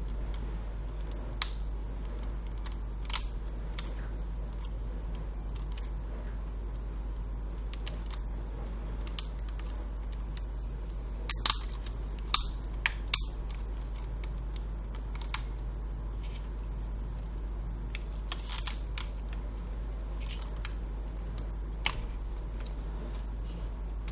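Scattered small clicks and taps as a laptop motherboard is handled and pressed in its plastic bottom case, with the loudest cluster of clicks about halfway through, over a steady low hum.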